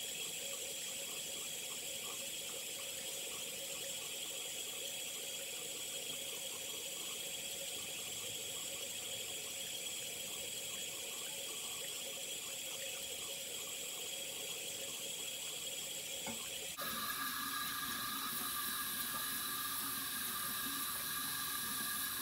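Bathroom sink tap running steadily, water pouring into the basin. The sound shifts suddenly about seventeen seconds in.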